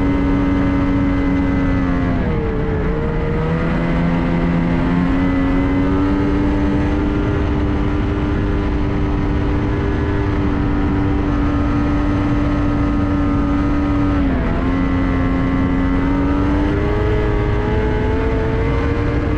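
2024 Ski-Doo MXZ X-RS 850 E-TEC snowmobile's two-stroke twin engine running steadily at trail speed, around 5,000 rpm, over the rush of the track. Its pitch dips as the throttle is eased about two seconds in and again about fourteen seconds in, then climbs back.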